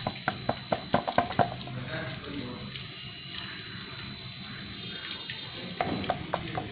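Excess powder shaken and tapped out of a silicone mold: a quick run of light taps in the first second and a half, then a steady sandy hiss, with a few more taps near the end. A thin, steady high whine sounds behind it and stops about six seconds in.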